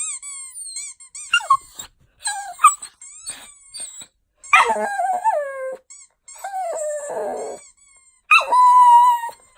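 A squeaky-toy sound effect squeaks a few times, then a dog answers with whining howls that slide down in pitch. The last howl, near the end, is long and held.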